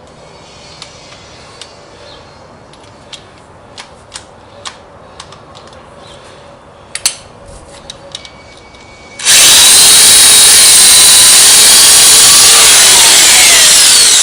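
A few small clicks and taps of handling, then about nine seconds in an electric drill starts up loud and runs steadily at full speed, drilling into the lathe carriage; near the end its pitch begins to fall as it winds down.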